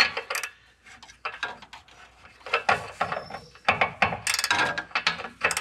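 Hand ratchet clicking in short runs with pauses between them as an oxygen-sensor socket tightens a new O2 sensor into the exhaust.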